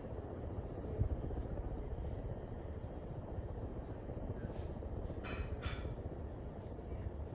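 Kviflon ceiling fan running steadily, a low hum and rush of moving air, with two short hisses a little past five seconds in.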